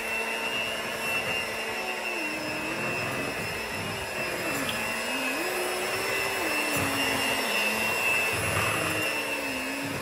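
Electric hand mixer running with its beaters in a bowl of thick banana bread batter: a steady motor whine whose pitch sags and recovers several times, stopping suddenly at the end.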